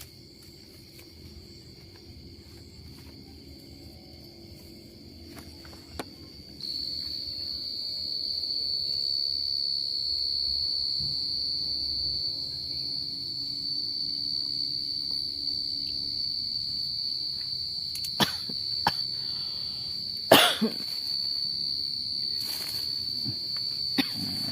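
Crickets chirring in one steady, high-pitched trill, which gets louder about a quarter of the way in. A few sharp clicks and knocks come near the end, the loudest about twenty seconds in.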